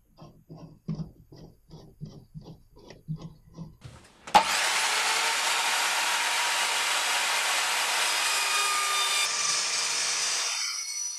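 A hold-down clamp screwed down in a row of short clicks, about three a second. About four seconds in, an Evolution Rage 210 SMS sliding mitre saw starts suddenly and cuts steadily through a DVD player's casing with its multipurpose blade; the cutting dies away shortly before the end.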